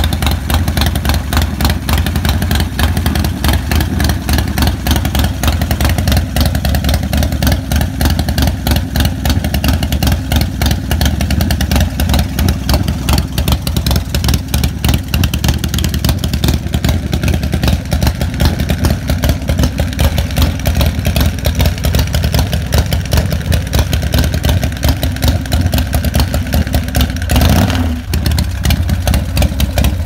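S&S 145-cubic-inch V-twin engine of a custom chopper running steadily just after start-up, its even firing pulses heavy in the low end.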